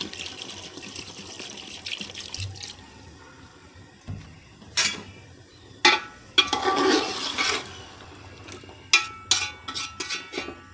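A glass of water poured into a metal cooking pot of chicken masala, running for about two and a half seconds and then fading. After that a spatula stirs and scrapes through the pot, with several sharp knocks of the spatula against the pot near the end.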